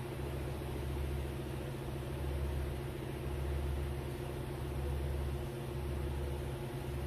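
A steady low hum with a few constant low tones, engine-like, swelling and easing slightly.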